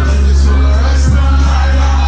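Loud pop music with a deep bass note held through most of the stretch, a drum hit about a second in, and a singing voice over it.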